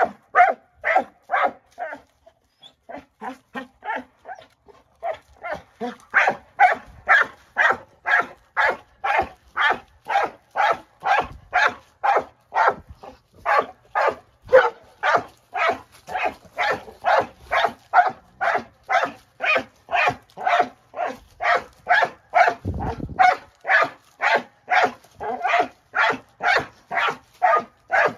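Dog barking excitedly in a long, steady run of short barks, about two to two and a half a second, a little softer and more ragged for a few seconds near the start.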